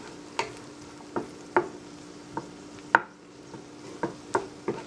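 Wooden spatula stirring diced potatoes, carrots and peas in a non-stick frying pan. It makes irregular light knocks against the pan, about ten in all, over a faint sizzle.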